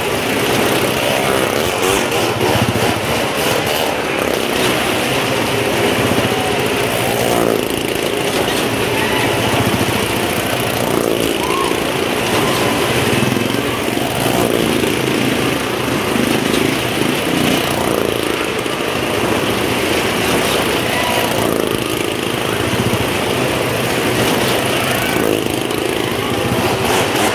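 Motorcycle and small-car engines running hard as the vehicles circle the vertical wooden wall of a Well of Death. The engine note is loud and steady and rises and falls every couple of seconds.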